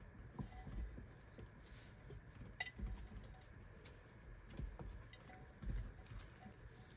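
Raccoons feeding on tangerines: irregular soft knocks and low thumps with scattered clicks, and one sharper click a little over two and a half seconds in.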